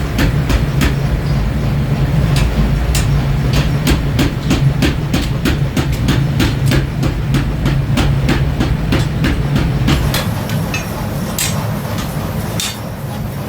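Hammer blows on steel at a blacksmith's forge, coming fast and even at about three strikes a second, over a steady low machine hum. About ten seconds in the hum stops and the strikes become sparser.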